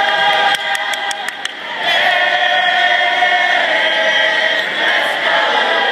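Gym crowd singing and chanting together in unison, loud and sustained. A few sharp knocks, such as basketball dribbles on the hardwood, come about a second in.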